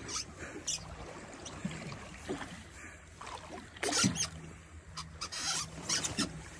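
Water lapping and splashing against the side of a fishing boat's hull, in irregular slaps, the loudest about four seconds in, over a faint steady low hum.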